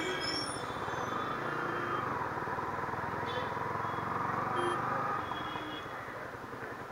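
Yamaha R15 V3's single-cylinder engine running at low speed through town traffic, a steady low pulsing with a faint whine in the middle; it drops a little in level after about five seconds.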